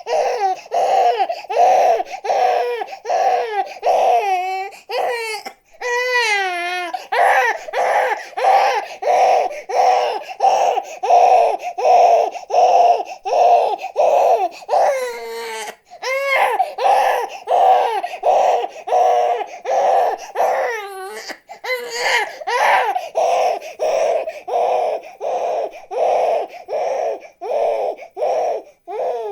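Infant crying in fast, rhythmic sobbing bursts of about two a second, broken by a few longer wavering wails.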